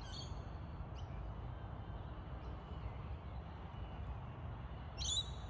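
Short bird calls: one at the start, a faint chirp about a second in, and a louder call near the end. Under them runs a steady low rumble.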